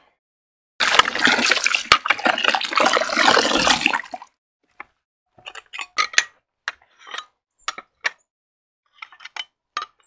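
About three seconds of loud, dense clattering rush, then ceramic tiles clinking sharply as they are set down one at a time onto a stack.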